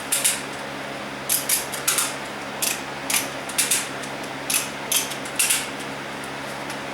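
Hand ratchet of a puller being worked to tension a pull on a damaged strut tower: about fifteen short, sharp metallic clicks in irregular pairs and singles, over a steady low hum.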